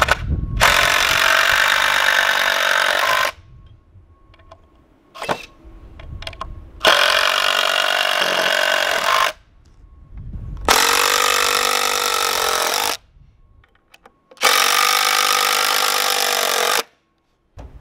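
DeWalt cordless driver driving screws into pallet lumber and wooden posts, four runs of about two and a half seconds each with short pauses between.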